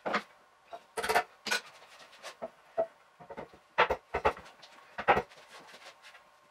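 Wooden boards knocking and rubbing as a top board is laid onto the bench frame and set beside the other, with about half a dozen sharp knocks and quieter scraping between them. The sound is sped up fourfold.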